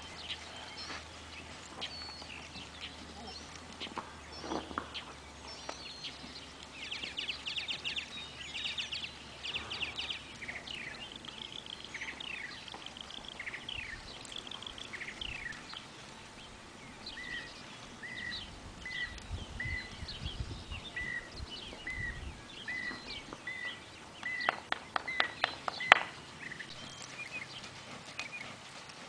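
Songbirds chirping and calling, one repeating a short clear note about twice a second through the middle. Low, soft thuds of a horse's hooves on arena dirt, and a sharp click near the end.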